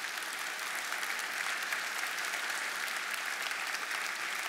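Congregation applauding: a dense, steady patter of many hands clapping.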